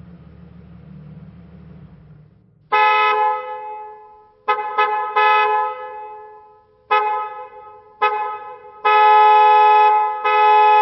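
A low rumble, then about three seconds in a car horn starts honking repeatedly in a mix of short blips and long blasts.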